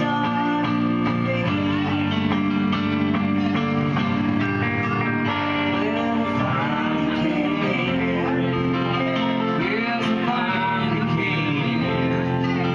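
Live band music: an electric guitar, a gold-top Les Paul-style, playing with an electronic keyboard, steady and full throughout, with bending notes in the middle of the passage.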